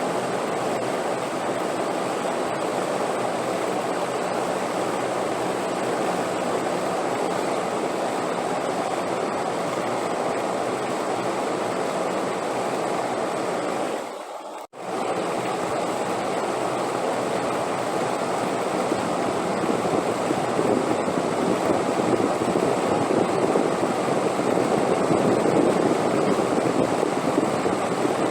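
Steady rushing wind noise with no gusts or lulls. About halfway through it drops out briefly, almost to silence, and comes straight back, then grows a little louder toward the end.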